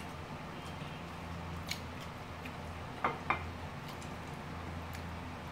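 Chopsticks clicking lightly against each other and the plates: a few sharp clicks, two close together about three seconds in, over a steady low hum.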